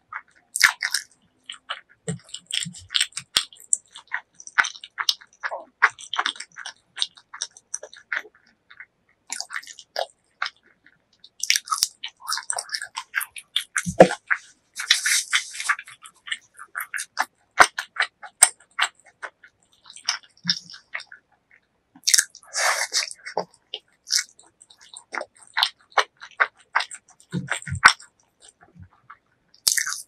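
Close-miked eating sounds: a person chewing food, with many short wet mouth clicks and smacks coming in irregular runs with brief pauses between them.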